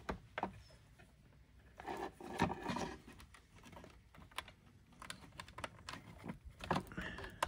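Scattered light clicks and brief rustling as a USB cable is handled and its plug pushed into a laptop's port.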